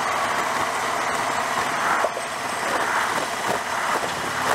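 Cruiser motorcycle riding at road speed: its engine runs steadily under a constant rush of wind on the microphone.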